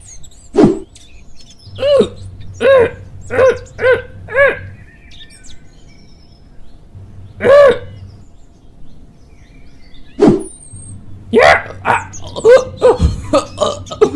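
A man's voice grunting with effort in a string of short, strained cries, about five in quick succession and then a few more spaced out. Near the end it turns into a fast run of choking, gasping noises ("eughh heughh eughhhhh"). Faint bird chirps sound behind it.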